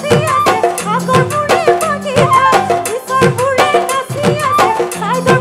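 A live band playing an instrumental Bihu passage between verses: a quick, steady drum beat with a gliding melody line over it.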